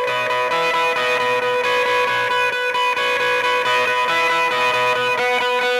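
Instrumental theme music with guitar, a held note sounding under a run of changing notes.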